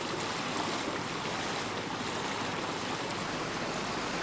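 Steady rushing wash of water and air from a small yacht motoring along, with a low hum underneath and no distinct event standing out.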